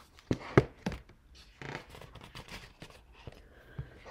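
Hardcover picture book being opened and handled: three sharp knocks in the first second, then soft paper rustling and a last knock near the end.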